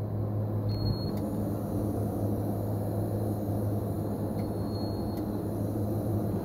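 Wheel balancer: a steady low machine hum with two short high electronic beeps, one about a second in and another around five seconds.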